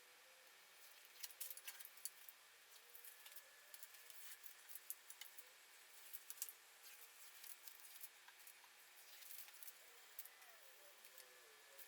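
Near silence with faint, scattered light clicks and taps, like small metal parts being handled.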